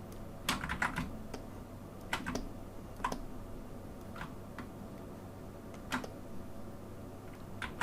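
Computer keyboard keystrokes: a quick run of four clicks about half a second in, then single presses and pairs every second or so, over a steady low electrical hum.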